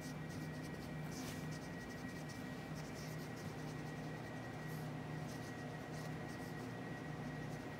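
Black marker being written across a T-shirt to sign it: faint, scattered scratchy pen strokes over a steady low room hum.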